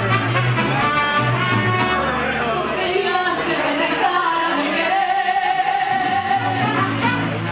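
Live mariachi music: two women singing into microphones over a mariachi band's guitars, with a long held sung note past the middle and deep bass notes underneath.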